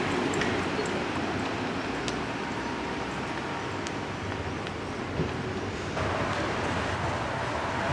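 City street traffic under a railway bridge: the steady rumble of a tram and passing cars, with a few faint ticks. About six seconds in, a steady higher hum comes in and grows as another tram approaches.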